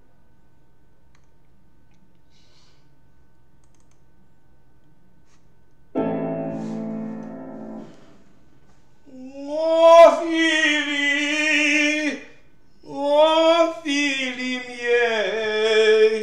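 A piano chord sounds about six seconds in and dies away over two seconds. Then a male tenor voice sings two long operatic phrases with wide vibrato, with a short breath between them.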